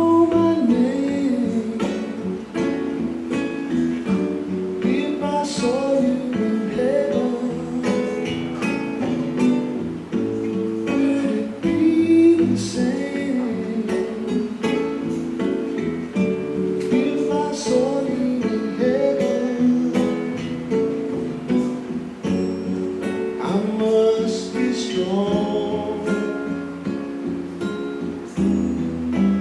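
A song with acoustic guitar and a singing voice, played back through an Onkyo NCP-302 wireless speaker.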